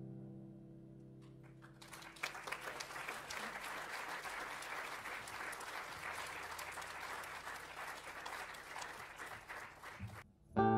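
Audience applause that starts about two seconds in, after a held musical chord fades, and lasts about eight seconds before stopping. Right at the end a guitar strum starts the next song.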